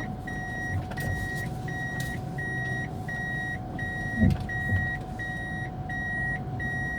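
A car's alarm beeper sounding a steady, evenly repeating beep, about one and a half beeps a second, with a short thump about four seconds in.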